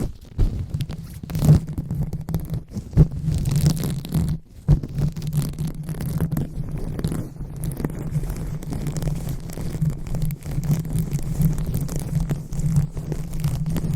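Close-miked ASMR 'brain massage' sounds: fingers rubbing and scratching directly on a microphone, giving a dense, continuous crackly rustling over a low, steady rumble.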